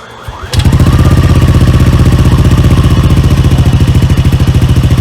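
Yamaha Aerox v2 scooter's 155 cc single-cylinder engine starting about half a second in, then idling steadily with an even, fast exhaust pulse through an aftermarket MT8 exhaust pipe.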